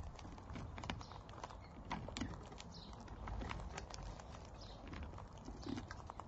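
Galahs and a corella pecking and cracking seed at a seed-bell feeder close to the microphone: irregular small clicks and taps of beaks on seed and husks.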